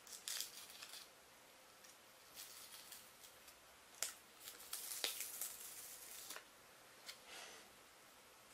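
Faint scratching and rustling of fingertips pressing and rubbing an adhesive patch onto the skin around a Dexcom glucose sensor, in short bursts with a sharp click about four seconds in and another about a second and a half before the end.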